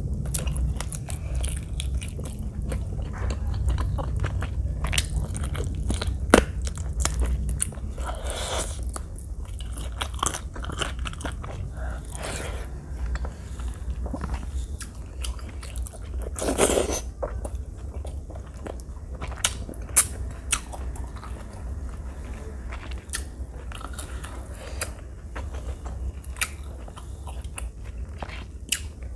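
Close-miked chewing of rice and chicken curry eaten by hand, with many short wet smacks and mouth clicks.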